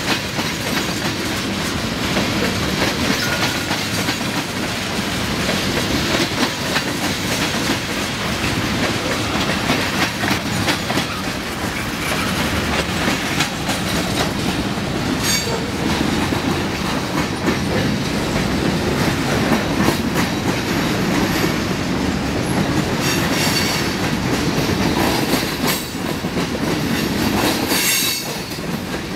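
Freight cars rolling past on steel wheels: a steady rumble with the rapid clickety-clack of wheels over rail joints. There are a few short high-pitched wheel squeals, the clearest two in the last third.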